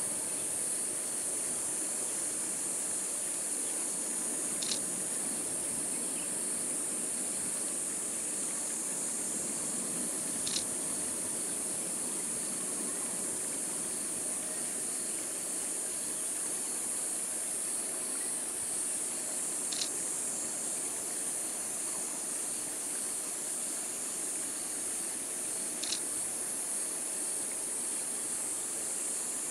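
A steady, high-pitched chorus of insects shrilling outdoors, with four brief higher chirps standing out at irregular intervals.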